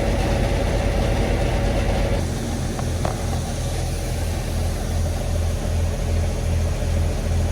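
Farm tractor engine running steadily. From about two seconds in there is a low throb that pulses two to three times a second.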